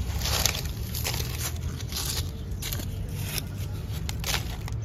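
Dry fallen leaves rustling and crackling as a hand gathers them and piles them over a plastic toy car, in several short bursts.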